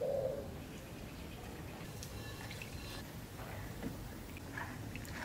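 Hands peeling boiled duck eggs in a plastic bowl of water: small splashes and drips, with soft clicks of shell coming away. A short, louder sound right at the start.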